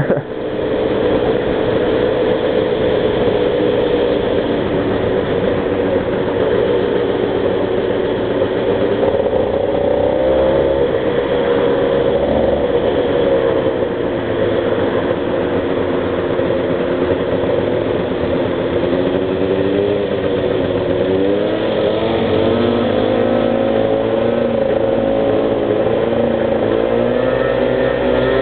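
Small two-stroke bike engine running at speed, its pitch rising and falling with the throttle: it eases off about halfway through and revs up again a few seconds later.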